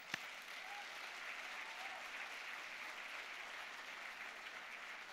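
Audience applauding steadily, many hands clapping at once. One sharp single clap close to the podium microphone right at the start.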